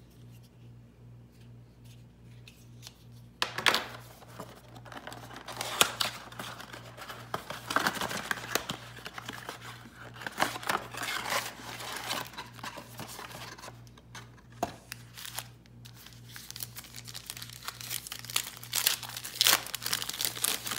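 Hands tearing open a cardboard Panini Prestige football blaster box and crinkling and ripping its foil trading-card packs. The crackling and tearing starts about three and a half seconds in and runs on busily, over a faint steady hum.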